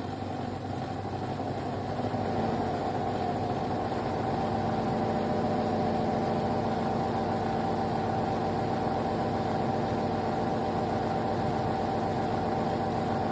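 De'Longhi Pinguino PAC EM82 portable air conditioner running, a steady hum of compressor and fan over a rushing airflow noise. It gets louder about two seconds in and again around four seconds.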